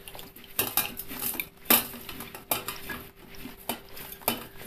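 Salted tender mangoes tumbling from a ceramic pickle jar into a stainless-steel mesh strainer over a steel bowl: a run of irregular knocks and clatters of fruit, jar and steel, the loudest nearly two seconds in, over a faint steady hum.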